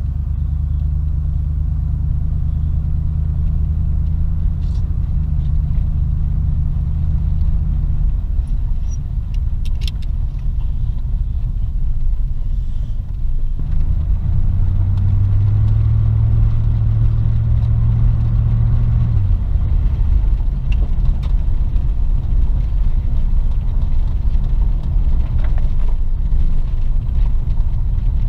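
Car engine and road rumble heard from inside the cabin while driving. The engine note holds steady, changes pitch a few times, and dips briefly about halfway through.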